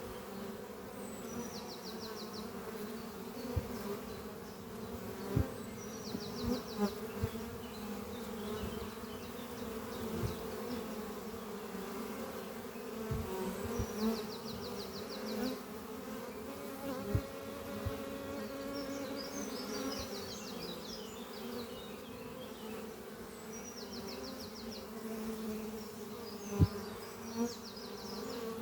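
A swarm of worker honeybees buzzing in flight around the entrance of their hive: a steady, many-voiced hum, broken by occasional brief soft knocks.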